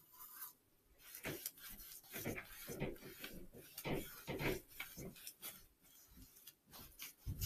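Paintbrush stroking and dabbing color onto watercolor paper in short, irregular strokes.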